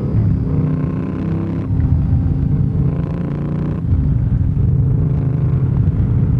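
Yamaha MT-07's 689 cc parallel-twin engine running under way, heard from the rider's seat. The engine note shifts and grows louder twice, at about a second and a half in and again near the middle.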